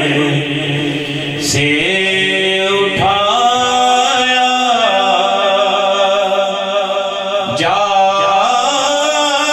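A man singing an Urdu naat (devotional kalam) into a microphone, drawing out long held notes that slide from one pitch to the next.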